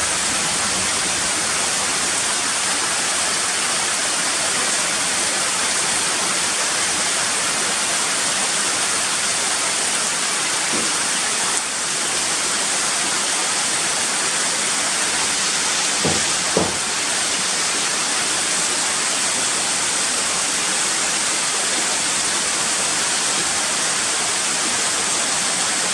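Steady rushing water, an even hiss of falling rain or running water with no change in level.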